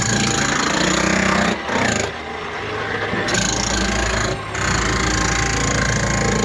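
A power tool running in bursts of a second or more, cutting out briefly twice before starting up again.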